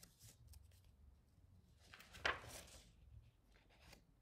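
Paper rustle of a paperback picture book's page being turned, with one brief louder swish about two seconds in amid faint handling rustles.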